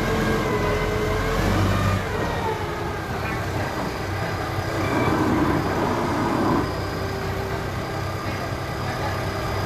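Forklift engine running, its pitch rising and falling with the throttle, with a louder rushing noise for about a second and a half midway.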